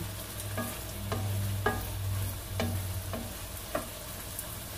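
Wooden spatula stirring and scraping diced pork and vegetables in a thick sauce around a non-stick wok, about six strokes, over a light sizzle. The sauce has cooked down and is caramelizing. A steady low hum runs underneath.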